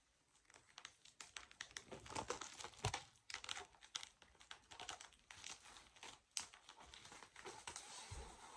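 Clear plastic packaging crinkling and crackling as it is pulled off a framed board by hand, in irregular handfuls with a couple of sharper crackles.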